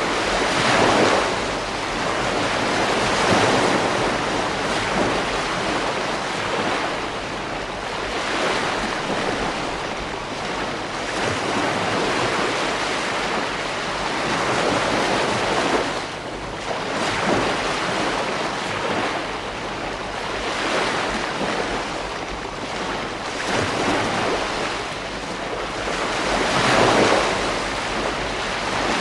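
Ocean waves breaking on a beach, the surf swelling and falling back every few seconds, with a steady rush of wind beneath.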